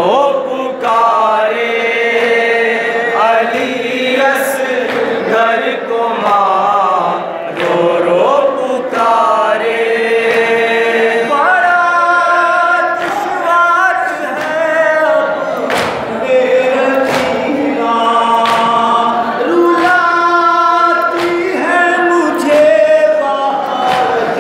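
A group of men chanting a noha, a Shia mourning lament, amplified through microphones. A lead singer carries the line and the others sing with him in unison, in long held, wavering phrases.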